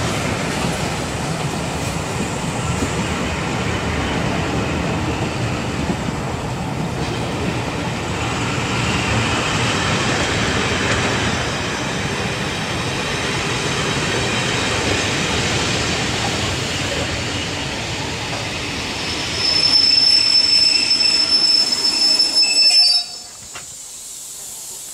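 Passenger coaches rolling past with a steady rumble of wheels on rail and thin wheel and brake squeal as the train slows to stop at the platform. A louder, high-pitched squeal near the end cuts off suddenly.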